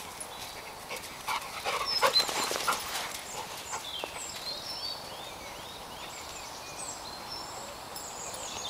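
Birds chirping throughout, with a cluster of short, louder sounds from a dog between about one and three seconds in.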